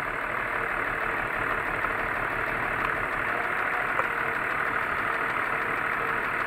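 BMW M54 inline-six engine idling steadily with its fifth cylinder disconnected, part of a cylinder-by-cylinder check for an engine knock that the owner places around the third cylinder.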